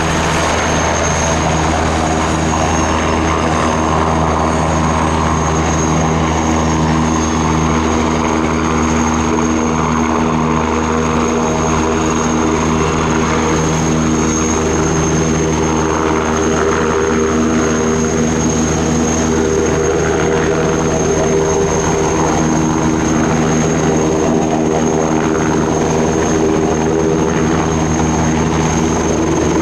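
Eurocopter EC665 Tiger attack helicopter flying low and slow into a hover, its rotor beating steadily under a high turbine whine.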